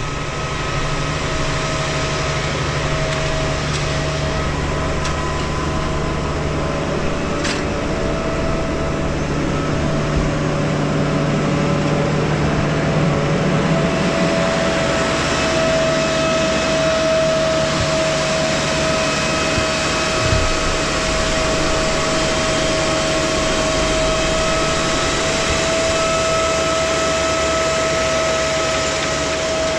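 Case IH 150 tractor running steadily while pulling a maize seed drill: a low engine hum with a steady high whine over it.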